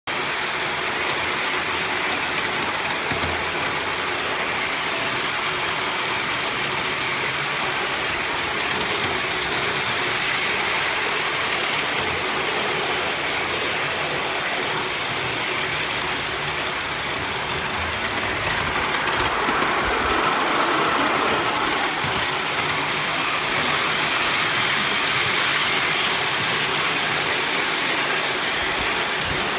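3.5-inch gauge live steam locomotive, LBSC's Heilan Lassie design, running under steam: a steady rushing sound from its exhaust and running gear, swelling a little about two-thirds of the way through.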